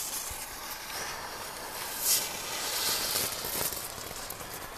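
Aircraft-carrier novelty firework boat hissing steadily as it burns on the water, with a brief louder burst about two seconds in.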